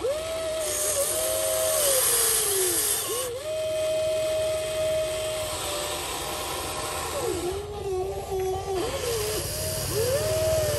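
Electric motors and gearboxes of a Huina RC excavator whining as the machine digs, swings and lifts its boom. Several whines rise, hold and fall in pitch, starting abruptly, over a steady hiss.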